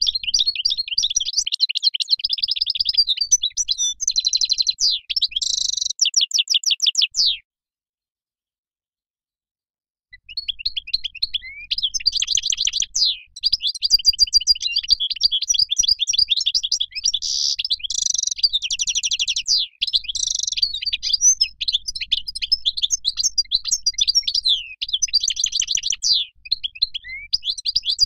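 European goldfinch singing: a continuous, high-pitched twittering song of rapid trills and chirps. It stops abruptly about seven seconds in and starts again about two and a half seconds later.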